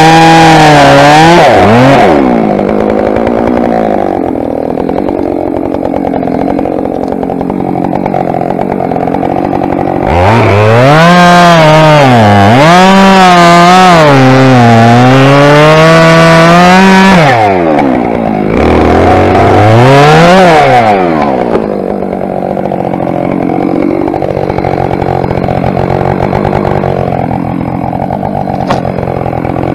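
Husqvarna 572 XPG two-stroke chainsaw at full throttle in the cut, dropping to idle about two seconds in. About eight seconds later it revs up again and saws into the thick spruce trunk for about seven seconds, its pitch dipping and recovering as the chain bites under load, then gives a short blip of throttle and settles back to idle.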